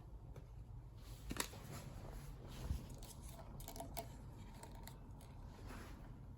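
Faint handling noises: a few light clicks and taps over a low steady hum, with a sharper click about a second and a half in and a short cluster of clicks a little past the middle.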